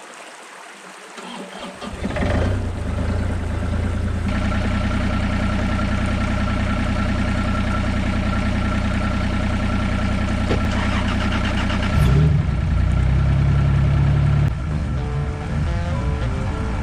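Hitachi 35U mini excavator's diesel engine starting up about two seconds in and running steadily, getting louder for a couple of seconds near twelve seconds as the machine is worked. Music comes in near the end.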